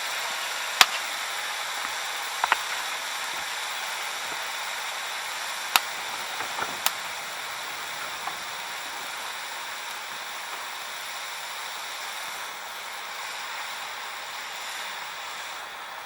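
Softwood firewood fire crackling: a steady hiss with a few sharp, isolated pops and snaps, the loudest about a second in and around six to seven seconds in.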